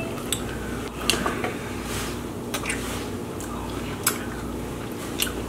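Close-miked eating sounds of a ripe strawberry being bitten into and chewed: a handful of short, wet clicks and smacks scattered over a steady low room hum.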